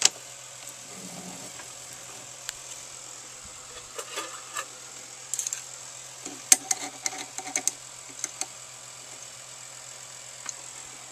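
Scattered sharp clicks and light metal taps from handling a dial caliper and tools against an aluminum blank in a small lathe's chuck, busiest in the middle, over a steady low hum.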